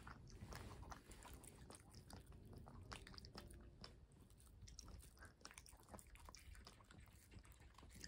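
A chihuahua biting and chewing a piece of strawberry: faint chewing clicks that come irregularly, several a second.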